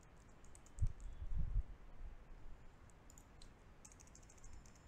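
Computer keyboard keys clicking in short runs as text is typed, with a few dull thumps about a second in.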